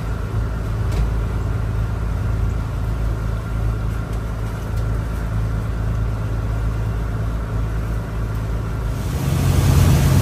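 A Fleming motor yacht's diesel engines drone steadily, heard from the helm as the boat cruises at low speed. About nine seconds in, the sound gets louder, with a different engine note and an added rushing noise.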